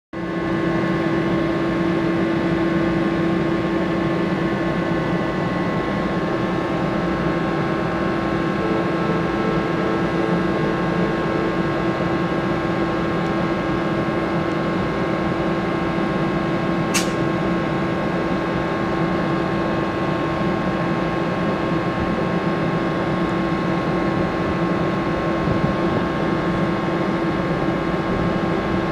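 ALP-45A dual-mode locomotive standing at the platform, running with a steady hum that carries a strong steady tone and several fainter ones above it. A single brief sharp click about seventeen seconds in.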